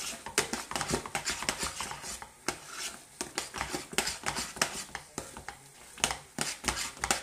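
A utensil stirring and beating thick mashed potatoes in a stainless steel pot, working the egg yolks in. It makes irregular scraping and clicking strokes against the pot, several a second.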